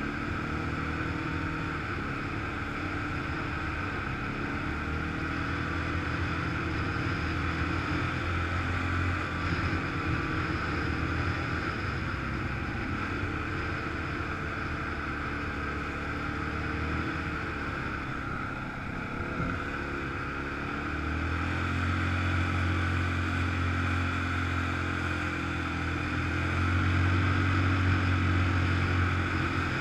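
ATV engine running under way along a dirt trail, a steady drone that gets louder about two-thirds of the way through and again near the end.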